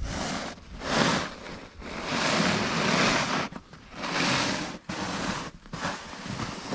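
Heavy, wet snow being scraped and pushed aside in a series of hissing strokes, one longer stroke about two seconds in.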